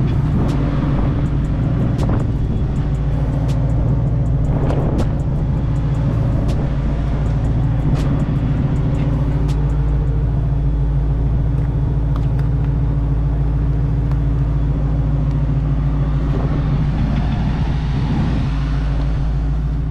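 Car engine running at a steady speed, a constant low drone with a few faint ticks.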